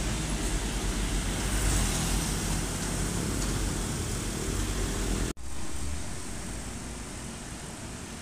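Diesel truck engines running, a loud low rumble as a heavy truck passes close by. The sound breaks off abruptly about five seconds in and continues quieter as another truck approaches from farther away.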